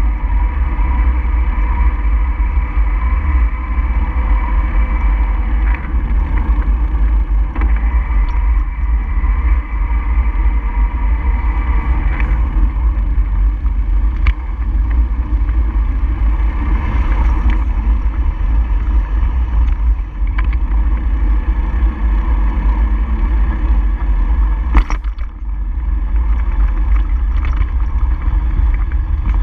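Steady wind rush and road rumble on a moving camera's microphone, with a faint steady hum underneath and a few sharp knocks from bumps, the loudest near the end.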